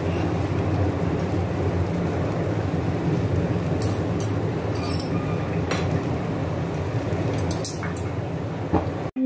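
Noodles frying in a wok: a steady sizzle with a low hum under it, and a few sharp clicks of metal utensils against the wok. It cuts off suddenly near the end.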